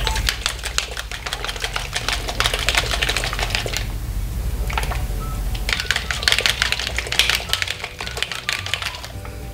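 Airbrush paint bottle being shaken by hand, rattling in fast clicks: two bouts of a few seconds each with a short pause between.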